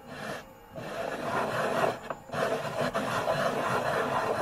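A bare hand rubbing and brushing sawdust across a freshly CNC-machined wooden board: a rasping back-and-forth swish, with a short break about two seconds in.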